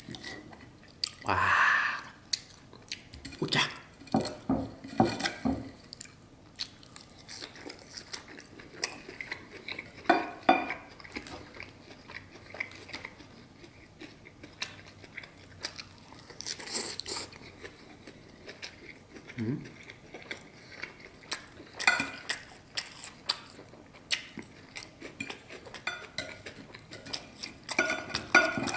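Chewing of steak and salad close to the microphone, with a steak knife and fork clicking and scraping on a plate as the steak is cut; irregular sharp clicks throughout.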